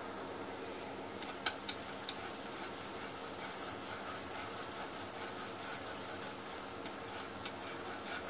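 Minced garlic sizzling in hot cooking oil in a pan, a steady hiss, with a few light clicks of a spoon stirring it about a second and a half in.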